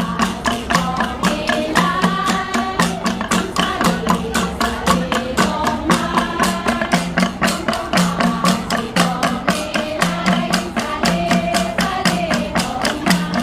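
Kalinga gangsa ensemble: flat bronze gongs struck in a fast, even, interlocking rhythm of about four to five strokes a second, the low gong tones ringing in a repeating pattern.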